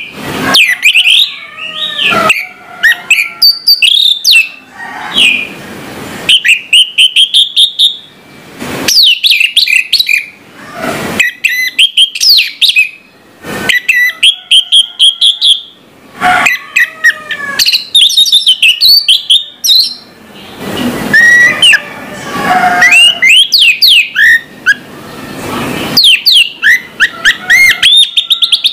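Orange-headed thrush (anis merah) singing loudly: a varied song of quick sliding whistles and fast runs of repeated notes, in phrases broken by short pauses, with a few harsher, rougher passages mixed in.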